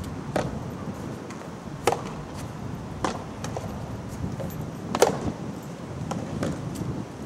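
Soft tennis rubber ball being struck by rackets and bouncing on the court: a series of sharp pops a second or two apart, the loudest about five seconds in.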